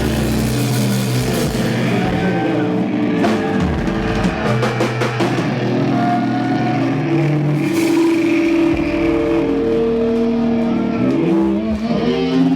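Live rock band playing, with drums and guitar holding sustained notes and sliding pitches.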